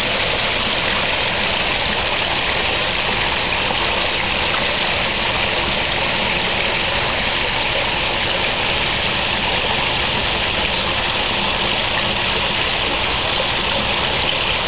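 Steady rush of falling, splashing water in a garden pond, an even unbroken noise.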